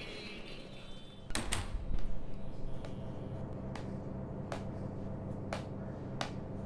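Steady machine hum of an old elevator car, with a heavy clunk about a second in and then single sharp clicks roughly once a second.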